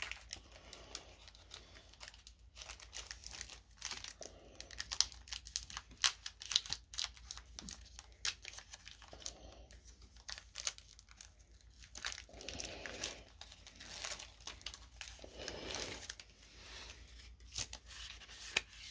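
Foil Pokémon booster pack wrapper crinkling and tearing as it is opened and handled, with many sharp crackles.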